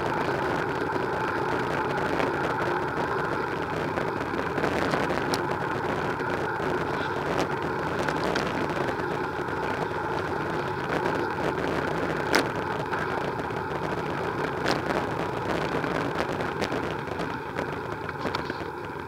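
Steady rolling and rushing noise of a bicycle ride picked up by a bike-mounted camera: tyres on the tarmac cycle lane and air over the microphone, with a few sharp clicks or knocks as bumps jolt the mount.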